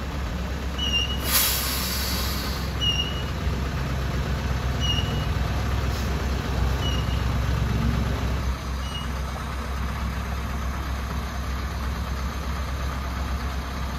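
Dump truck's diesel engine running steadily while the raised tipper body is lowered, with a short hiss of air about a second in. A short high electronic beep repeats every two seconds, stopping about nine seconds in.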